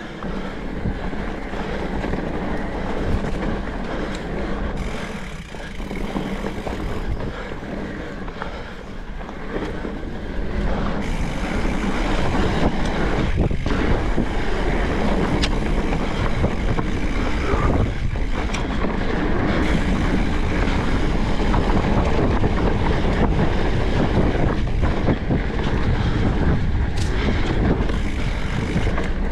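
Riding noise of a Specialized Turbo Levo e-mountain bike on a dirt trail: tyres rolling over the ground, the bike rattling, and wind rumbling on the microphone. It gets louder about eleven seconds in.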